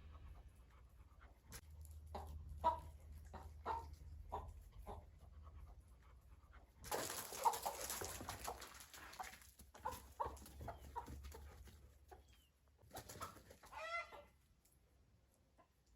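A chicken clucking and squawking in short repeated calls, with a loud rustling burst about seven seconds in.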